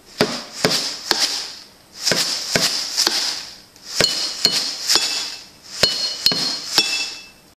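Rhythmic knocking and clinking in four phrases of three sharp strikes. Each phrase comes with a hissing rattle that swells and fades, and the later strikes leave a short high ringing clink.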